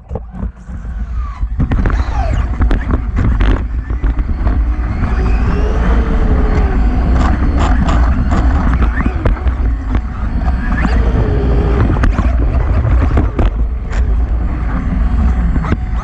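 Radio-controlled motocross bike driving over pavement, heard from its onboard camera: a heavy rumble of wind and tyre noise with frequent rattling knocks, and a faint electric-motor whine that rises and falls with the throttle.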